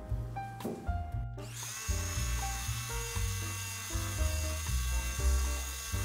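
Handheld immersion blender running in chocolate cake batter in a stainless steel bowl: a steady, high motor whine that starts about a second and a half in. Background music with a bass line plays throughout.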